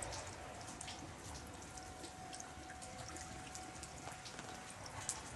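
Meltwater from thawing snow dripping irregularly onto a wet platform: scattered small sharp drips over a faint background hiss.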